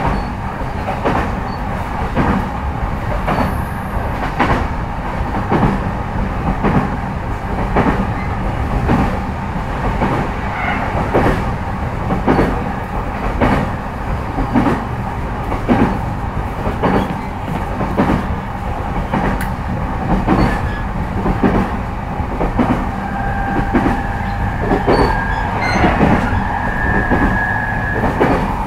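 Inside an E233-5000 series electric motor car running along the line: a continuous wheel-and-rail rumble with sharp clicks over the rail joints at a steady rhythm. Near the end, two steady high tones join the running noise.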